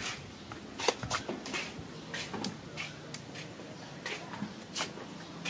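Scattered light clicks and knocks at irregular intervals, the loudest about a second in, over a faint steady low hum.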